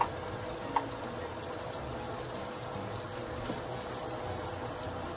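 Egg-battered fish fillets sizzling steadily in hot oil in a skillet, with two light clicks of a spatula against the pan near the start.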